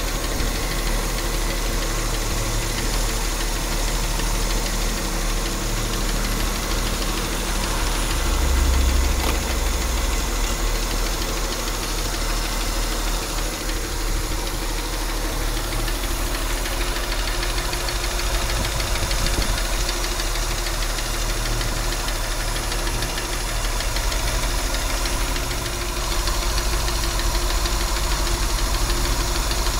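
230 inline-six engine running, with a grinding noise the owner cannot yet place. It swells briefly louder and deeper about nine seconds in.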